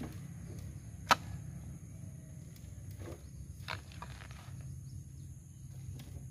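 A sharp knock about a second in, the loudest sound, then a few fainter knocks, over a steady low hum.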